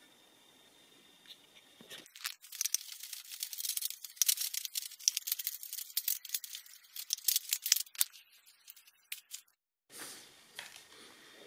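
A dense run of small scraping and clicking handling noises as a wooden post with a steel plate is shifted by hand on threaded steel rods. It starts about two seconds in and stops shortly before the end.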